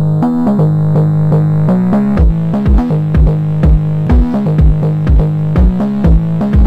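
Electronic background music: a held synth bass line with notes above it, joined about two seconds in by a deep kick drum beating about twice a second.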